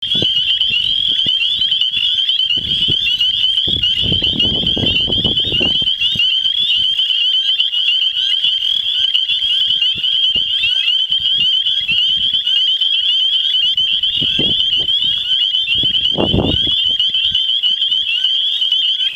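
A dense chorus of frogs calling, a continuous high-pitched peeping of many overlapping voices that never lets up. Low rumbles come through about three seconds in and again near the end.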